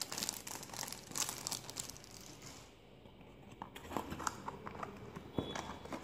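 Clear plastic bag around a wireless mouse crinkling as it is handled, then scattered taps and rustles of a cardboard box being handled. There is a quieter lull about halfway through.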